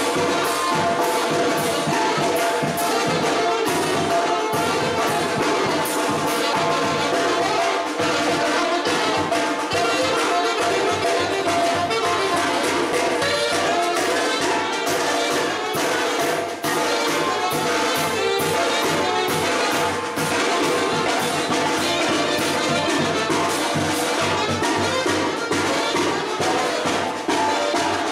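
Mexican brass band (banda) playing live: trumpets and trombones carrying the melody over a steady beat of drum and cymbal strokes.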